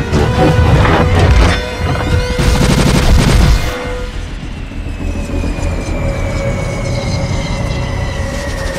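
Sci-fi battle sound effects of rapid blaster fire and booming impacts over an orchestral film score for the first few seconds. Then the gunfire drops away and the score carries on with held notes and a high tone that slowly falls.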